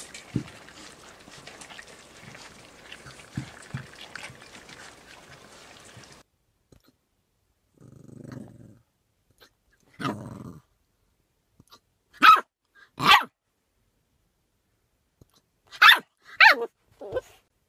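Jack Russell terrier puppies eating from bowls: a busy patter of chewing, lapping and bowl clinks. Then a young puppy with hiccups, giving one soft hiccup and then six short, sharp yelps, the loudest in two pairs in the second half.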